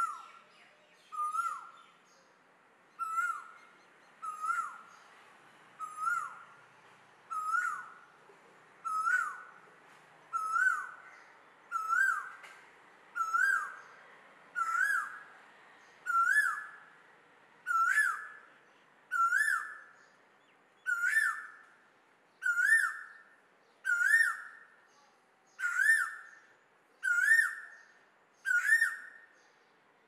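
Male Asian koel singing its repeated rising 'koo-Ooo' song: about twenty notes roughly one and a half seconds apart, each pitched a little higher and louder than the one before.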